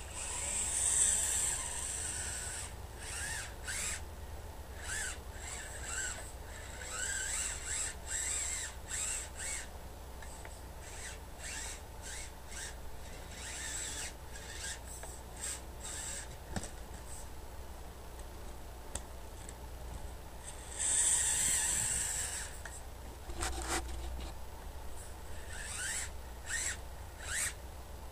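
Radio-controlled scale crawler truck's small electric motor and gears whining in stop-start throttle bursts, the pitch rising and falling with each burst. The longest bursts come right at the start and about three-quarters of the way through.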